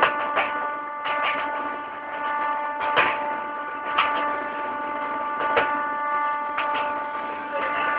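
Meter-gauge train rolling, its wheels clicking over the rail joints roughly once a second, sometimes in quick pairs, over a steady multi-pitched whine.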